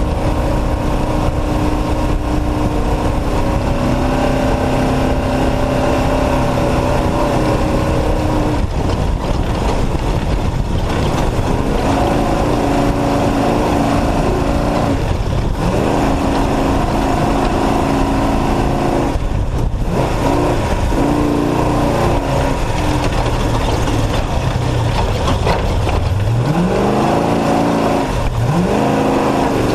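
Off-road race truck's engine running hard under constant wind and road noise. The note rises and falls with the throttle, drops briefly several times, and sweeps up twice near the end as the revs climb.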